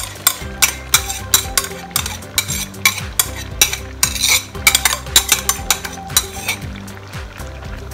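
Metal ladle scraping and knocking against a ceramic bowl in a quick, uneven run of clicks and scrapes, scooping out thick first-press coconut cream (kakang gata), with a low steady hum underneath.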